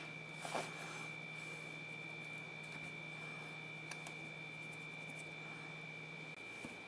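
Faint room tone: a steady high-pitched whine over a low hum, with a light rustle about half a second in; the low hum stops near the end.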